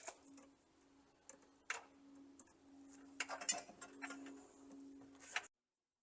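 Scattered light clicks and rustles of electrical wires being handled and fastened to an electrical snake (fish tape), over a faint low hum that comes and goes. The sound cuts off abruptly near the end.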